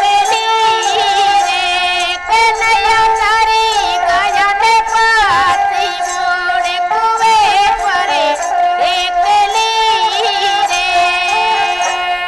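Music: a single high melody line that slides and bends between notes, with many ornaments.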